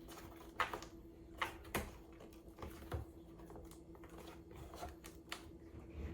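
Cardboard panels of a flat-pack cat scratcher box being handled and slotted together: a few light taps and scrapes, the sharpest in the first three seconds, then smaller ticks.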